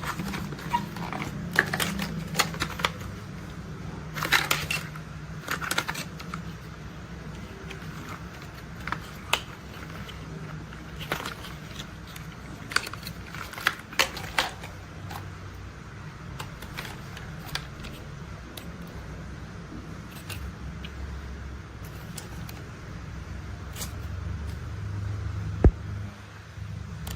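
Plastic toy construction vehicles being handled, with irregular clicks and rattles over a low steady hum.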